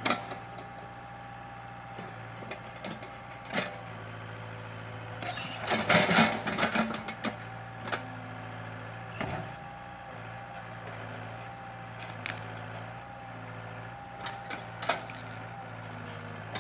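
Sumitomo mini excavator running steadily with a whining tone from its hydraulics, broken by several sharp knocks and a louder burst of knocking and scraping about six seconds in, as the machine works at a eucalyptus stump.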